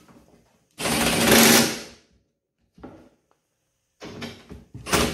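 Milwaukee Fuel cordless impact driver running in short bursts as it drives the gas tank strap bolts back in. One loud run of about a second starts about a second in, a short clatter follows, and a second run begins near the end.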